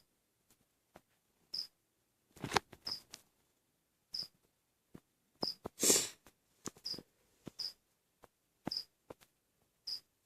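Scattered small clicks and brief rustles of packaging and handling, with a longer, louder rustle about six seconds in. A short high chirp repeats about every second and a quarter.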